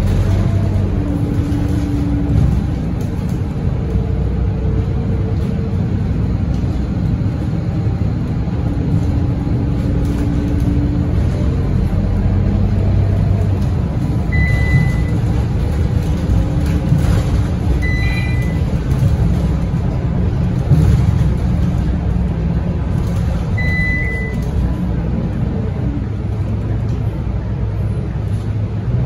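Scania K230UB single-decker bus's diesel engine and drivetrain running while under way, heard from inside the cabin as a steady low rumble with road noise. A short high electronic beep sounds three times in the second half.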